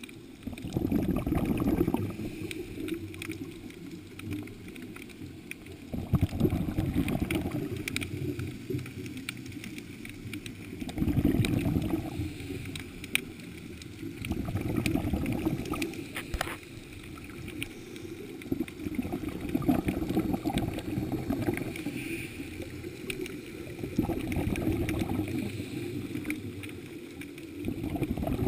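Scuba diver's breathing heard underwater: the regulator's exhaled bubbles rush and gurgle in low-pitched bursts every four to six seconds, with quieter stretches between breaths.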